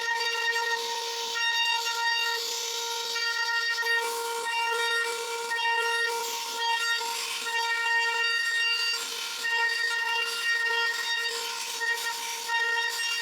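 CNC router spindle whining at a steady pitch while its bit cuts wood, with a hiss and higher overtones that come and go as the cut goes on.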